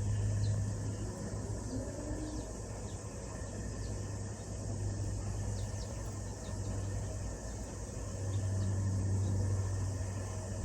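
Outdoor ambience: a steady low hum that swells and eases, under an even hiss, with faint short high chirps scattered through it.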